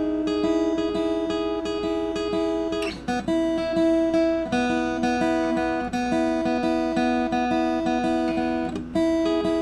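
Acoustic guitar fingerpicked in a steady eighth-note pattern, the index and middle fingers repeating the same notes while the thumb carries the rhythm. The chord changes about three seconds in and again near the end.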